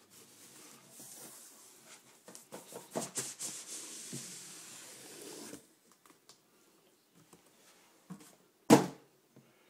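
Cardboard shipping packaging being cut and opened: scraping, rustling and tearing with small clicks for about five seconds. Then a pause and one loud thump near the end as something is set down.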